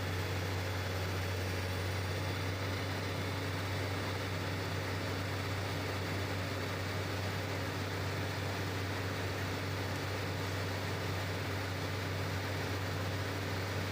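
Heavy diesel excavator engine running steadily, a constant low drone with no change in pitch or level.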